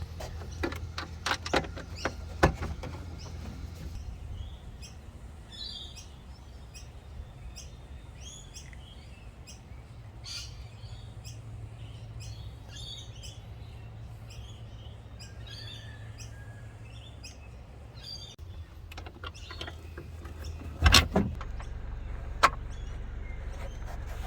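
Clicks and light knocks from hands and tools working on a car's sunroof frame, over a low steady hum, with birds chirping in the background through the middle; two sharp knocks near the end are the loudest sounds.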